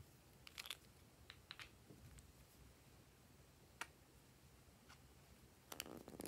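Near silence broken by a few faint clicks and taps of plastic makeup containers being handled, with a closer cluster of plastic clicks near the end as a green cosmetic container is picked up and gripped.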